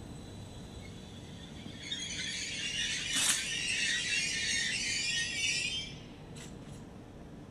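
Vy/NSB Type 74 Stadler FLIRT electric multiple unit pulling out, its wheels giving a high metallic squeal against the rails for about four seconds from about two seconds in. There is one sharp crack in the middle, over the train's low rumble.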